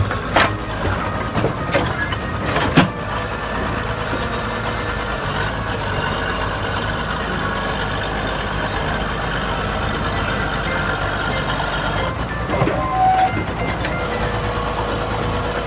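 Steady truck-like engine rumble, with several sharp knocks in the first three seconds and a brief tone near the end.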